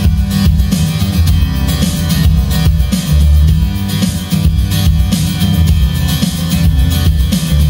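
Recorded band music with drum kit and guitar and a heavy bass line, played back loud from a CD through a home stereo system.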